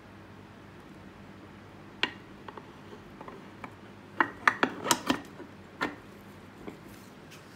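Cast metal transmission case half knocking and clinking against its mating half as it is set in place by hand. One sharp knock about two seconds in, a quick cluster of clinks a little after four seconds, and one more near six seconds.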